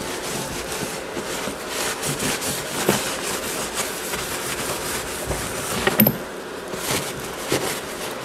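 A wet rag wiping and rubbing over the metal-clad side of an antique camelback trunk, with a few light knocks and clicks, the sharpest about six seconds in.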